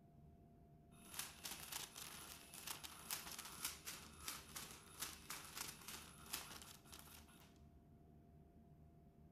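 Battery-powered cat toy running, its wand sweeping under the fabric cover with a crinkling rustle of many quick, irregular clicks; it starts about a second in and stops near the end.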